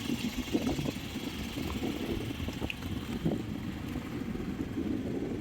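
Boat engine running steadily with a low, even throb.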